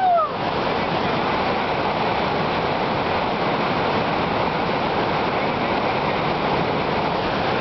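Rocky river rapids rushing in a steady, loud roar of whitewater. Right at the start, the tail of a high held call falls away.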